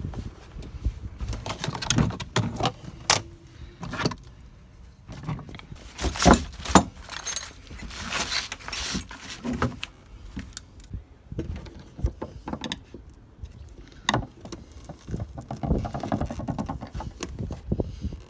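Irregular clicks, knocks and rattles of hands working with tools and small parts, with a denser scraping rustle about six to nine seconds in.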